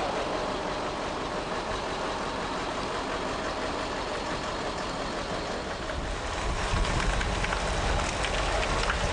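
Heavy tow tractors' engines running as they haul the An-22 transport plane slowly along, with the rumble of its large tyres rolling over the pavement. A deeper rumble comes in about six and a half seconds in.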